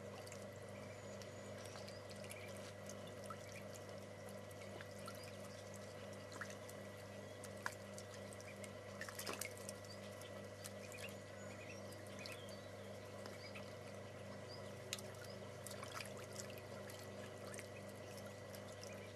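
Ducklings splashing and dabbling in a shallow tray of water: faint, scattered little splashes and drips, a few louder ones about halfway through, over a steady low hum.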